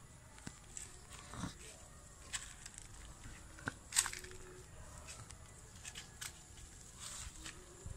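Kittens making small sounds: scattered light clicks and crunches, the sharpest about halfway through.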